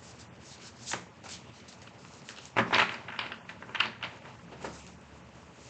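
Tarot cards being shuffled and handled: a string of irregular soft slaps and rustles, the loudest a little before halfway through.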